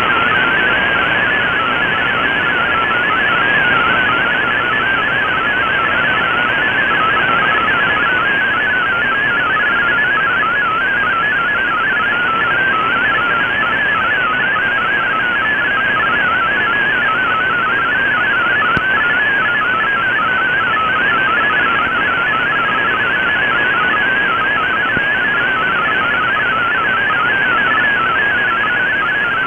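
MFSK32 digital data signal from a shortwave broadcast, heard through an Icom IC-R8600 receiver: a fast, warbling stream of hopping tones over steady band hiss.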